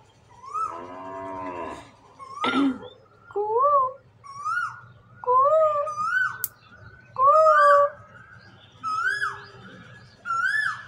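Asian koel calling over and over, about nine short notes roughly a second apart, each rising then falling in pitch. A short voice-like sound comes near the start and a sharp knock about two and a half seconds in.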